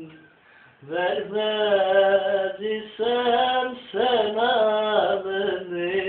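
A young man singing a Turkish song unaccompanied, in long held notes with wavering ornaments, after a brief breath about half a second in.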